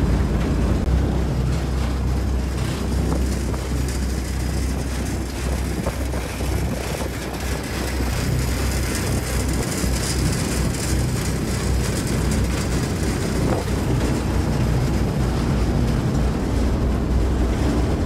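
Steady wind rush and low rumble of a small open-doored cable-car cabin running along its steel cable, with wind buffeting the microphone, stronger in the middle.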